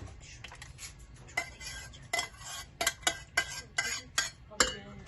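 A metal utensil stirring in a bowl: repeated clinks and scrapes against the bowl, several a second, starting about a second and a half in.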